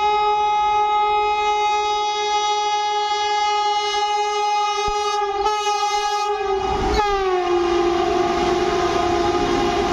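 Vande Bharat Express horn sounding one long, steady, high note as the train approaches at speed. About seven seconds in, the pitch drops sharply as the train passes (Doppler shift), and the lower horn note carries on over the rushing noise of the train going by.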